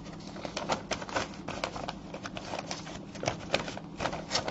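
Irregular light clicking and tapping, several clicks a second, typical of typing on a keyboard, over a steady low hum.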